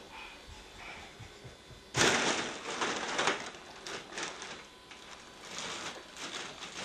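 Foil (mylar) balloon crinkling and rustling as it is handled, starting suddenly about two seconds in and going on in irregular crackles.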